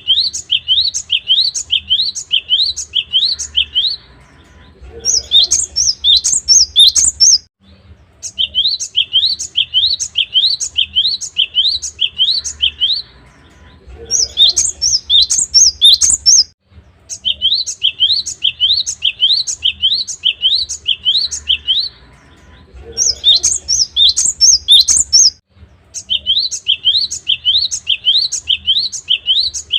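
Cinereous tit (gelatik batu) singing: runs of short rising whistled notes, about two or three a second, each run ending in a quicker, higher burst of notes. The phrase repeats about every nine seconds.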